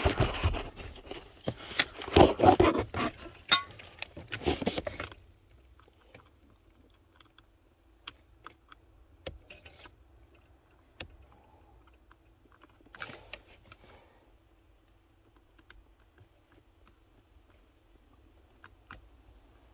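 Scraping, clattering and clicking of hands working at a car's fuse box for about five seconds, then scattered light clicks and a short scrape about thirteen seconds in, over a faint steady hum.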